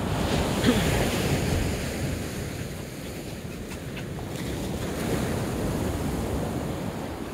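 Ocean surf washing onto a beach, with wind on the microphone; the wash swells about a second in and again around five seconds.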